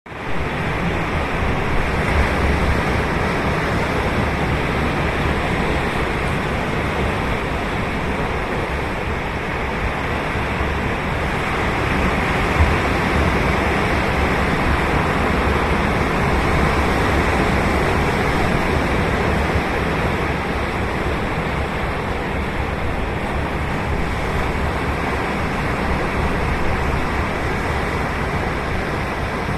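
Ocean surf washing onto the beach: a continuous rush of breaking waves that swells and eases slowly.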